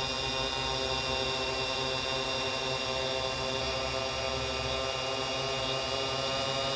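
X8 coaxial octocopter's eight electric motors and propellers hovering, a steady multi-toned hum that holds its pitch.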